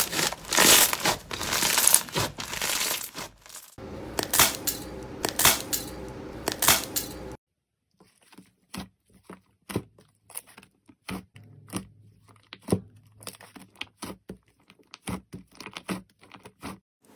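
Slime being squeezed and pressed by hand, giving dense crackling and crunching. About seven seconds in, after a cut, it changes to quieter, sparse sticky clicks and pops.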